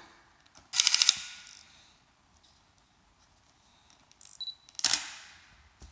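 Canon 70D DSLR being operated: a quick cluster of sharp clicks about a second in, a short high beep near four seconds, then the shutter firing once, a single loud click, near five seconds, as the revived camera takes a test shot.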